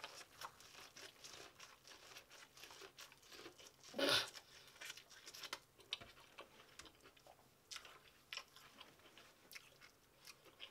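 Close-up chewing of sweet corn on the cob: soft crunches and small wet mouth clicks, with one louder mouth sound about four seconds in.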